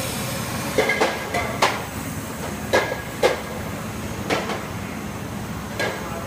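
Resina bottle-capping machine running: a steady mechanical hum with irregular sharp metallic clacks, some ringing briefly.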